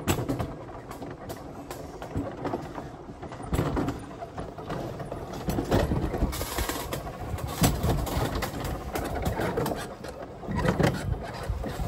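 Alpine coaster sled running down its steel rail track: a steady rushing noise with frequent irregular clicks and knocks from the wheels on the rail.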